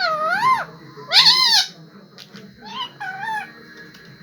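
Indian ringneck parrot giving four high-pitched calls, each rising then falling in pitch, two loud ones followed by two fainter, shorter ones.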